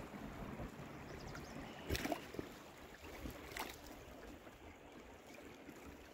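Water lapping and gurgling against the tubes of an inflatable pontoon boat. Two sharp knocks come about two seconds in and again a second and a half later.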